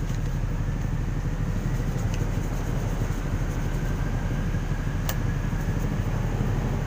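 Steady low mechanical rumble, like machinery running, at an even level throughout, with a few light clicks and a sharper click about five seconds in.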